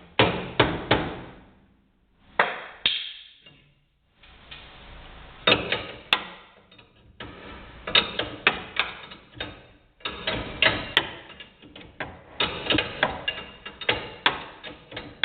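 Sharp metallic clicks and knocks from hand tools at work on a car's front suspension during a coil-spring installation. They come in bursts with short pauses, then fall into a run of rapid clicks about five seconds in.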